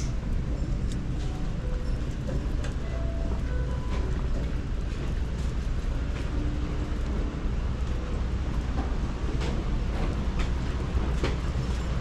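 Metal shopping cart rolling over a hard store floor: a steady low rumble with scattered clicks and rattles.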